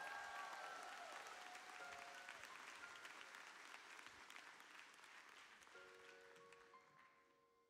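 Faint congregation applause, fading steadily away. Near the end a few soft sustained instrument notes begin.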